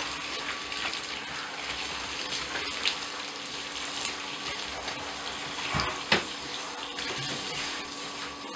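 Handheld shower spraying water onto an orangutan's soapy fur and into a bathtub, a steady hiss and splash. Two sharp knocks, about three and six seconds in.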